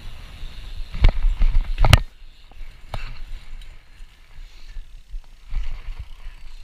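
BMX bike rolling over pavement: rumble of tyres and wind on a body-mounted action camera, with two hard knocks about one and two seconds in, the second with a sharp click, and a smaller click a second later.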